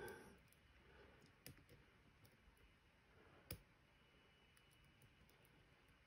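Faint, scattered clicks of a lock pick working the pin stacks inside a Medeco M3 lock held under tension, with one sharper click about three and a half seconds in.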